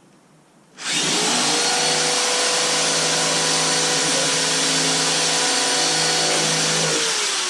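Electric drill starting about a second in and running at a steady speed as it bores a dowel hole into wood, then released near the end, its motor pitch falling as it spins down.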